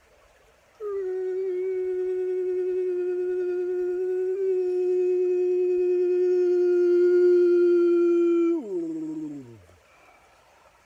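A man's voice toning: one long sung note held steady with a slight waver for about eight seconds, then sliding down in pitch and fading out.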